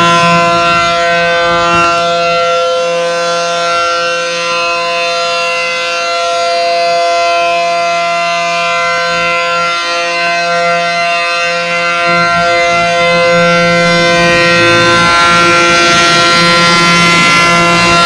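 ACA Allertor 125 rotating outdoor warning siren sounding a loud, steady tone at a constant pitch during a test. Its level swells and fades a little as the horns turn toward and away.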